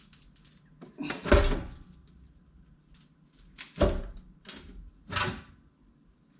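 Wood stove's door being handled, with three loud metal clunks, about a second in, near the middle and a little before the end.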